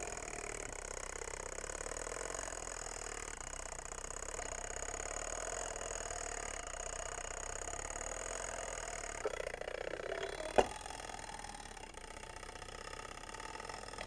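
Spring-driven mechanism of an old Samson fire alarm pull box running on its own after the hook has been pulled down and released: a steady mechanical whir that goes on and on. It changes and grows softer about nine seconds in, with a single sharp click shortly after.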